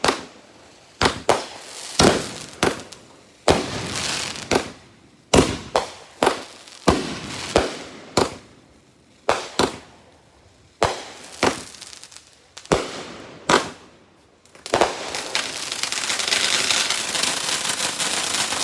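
Consumer fireworks going off: about twenty sharp bangs in an irregular string over some fourteen seconds, then a continuous hissing, crackling spray.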